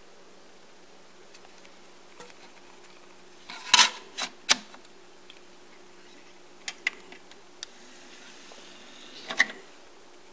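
Sharp plastic clicks and snaps of a DVD case being handled as the disc is taken out, then a few light taps as the disc is set on the open tray of a Denon DVD-2900 player. The tray motor then draws the tray in, ending with a clunk shortly before the player starts loading the disc.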